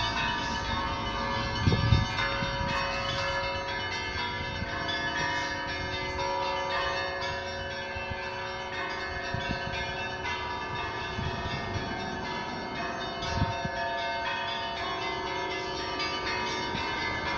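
Orthodox church bells ringing a Christmas peal, many sustained, overlapping tones that shift as different bells are struck. There is a brief low thump about two seconds in and another near the end.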